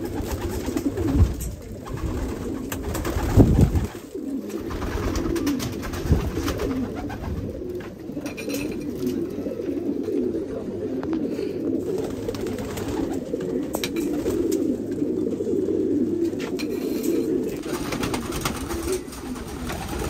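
A flock of domestic pigeons cooing continuously, many calls overlapping into one steady low chorus. A few thumps break in, the loudest about three and a half seconds in.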